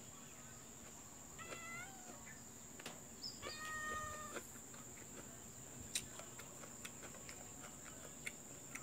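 A cat meowing twice, each call lasting about a second, the first about a second and a half in and the second around three and a half seconds in. A few sharp clicks come later, and a thin steady high whine runs underneath.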